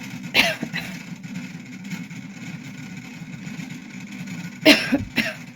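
A person coughing: a loud cough near the start and another near the end, each followed by a smaller cough, over a steady low background hum.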